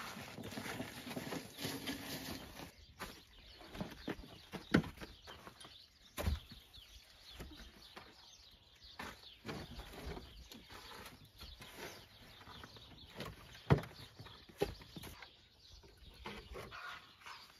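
Firewood logs being handled and dropped into a wheelbarrow: scattered wooden knocks and thuds at irregular intervals, the sharpest about five seconds in and again near the end.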